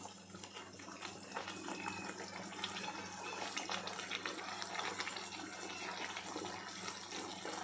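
Thick keema gravy simmering in a pan on a low gas flame, with soft, irregular bubbling pops, and a few snips of kitchen scissors cutting coriander leaves into it. A steady low hum runs underneath.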